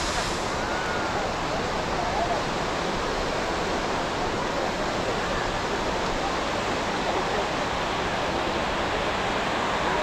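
Steady rushing wash of surf breaking on a sandy beach, with faint voices and calls of many people scattered through it.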